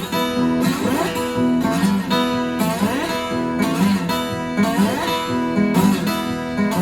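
Johnson dreadnought acoustic guitar in open E tuning, strummed chords struck about once a second and left ringing.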